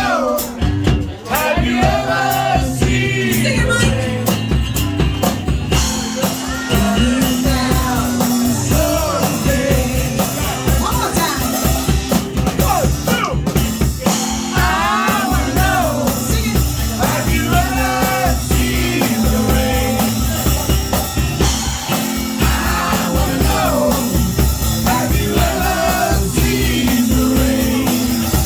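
A rock song with a sung melody line over a steady drum-kit beat and bass.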